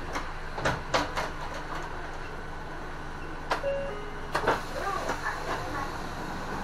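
Inside an Isuzu city bus stopped with its door open: the engine idles with a steady low hum, under scattered clicks and knocks and one short beep about three and a half seconds in.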